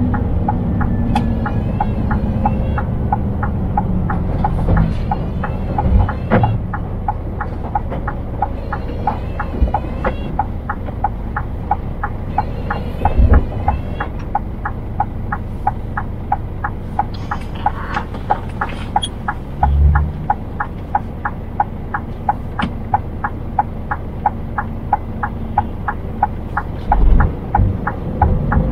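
Inside a Scania truck cab, the diesel engine and road make a steady low rumble. From about six seconds in, the turn-signal indicator ticks steadily at a few clicks a second, typical of the truck waiting or slowing to turn.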